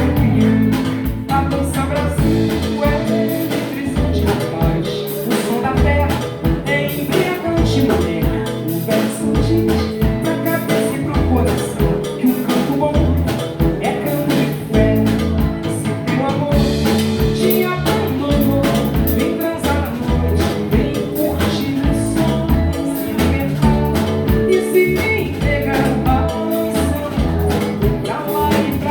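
Live band playing an instrumental passage of a samba-style song: acoustic guitar, electric bass and drum kit keeping a steady groove.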